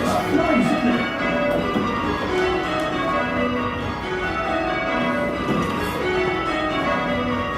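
A light ring of eight Taylor church bells, cast in 1965 with a 7 cwt tenor in B, change ringing: a steady, even, unbroken stream of bell strikes, each note ringing on into the next.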